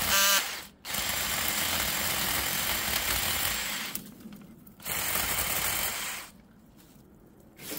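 Cordless drill driving a drill-mounted chainsaw attachment, its chain cutting into a branch in two runs: about three seconds, a brief stop, then about a second and a half more before it stops. The drill is too weak to drive the chain properly, so the teeth keep jamming in the cut.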